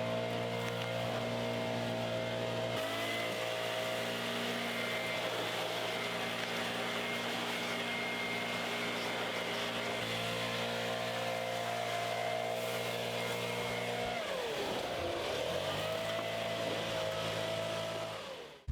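A motor running steadily; its pitch sags and recovers about fourteen seconds in, and it cuts off abruptly near the end.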